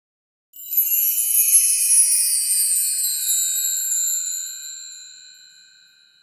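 Bright, high-pitched shimmering chime sound effect, several ringing tones together, starting about half a second in and slowly fading away over the next five seconds.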